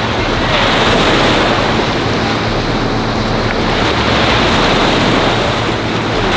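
Sea surf washing onto a sandy beach in a steady rush that swells slightly twice, with wind buffeting the microphone.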